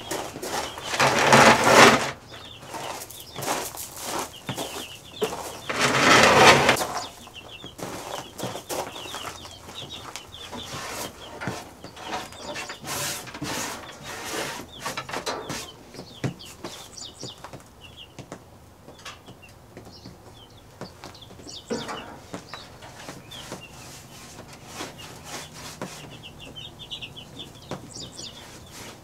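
Chickens cheeping and clucking in short high calls throughout. Two louder bursts of noise, each about a second long, stand out about a second in and again about six seconds in.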